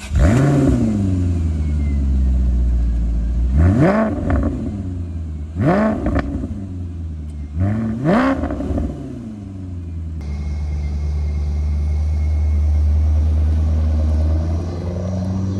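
2006 Maserati Quattroporte Sport GT's 4.2-litre V8 firing up, its revs flaring and then falling back. About two seconds apart, three throttle blips follow, each sweeping up and back down, and the engine then settles into a steady idle.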